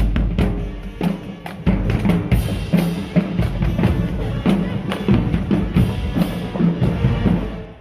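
Marching band drumline playing a cadence: fast snare strikes over pitched bass drums. It cuts off abruptly near the end.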